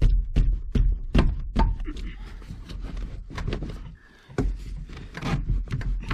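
Irregular knocks and thumps, a few a second, with a short lull about four seconds in: a car's interior panel being pried and tugged at. It is still held by hidden clips or tabs.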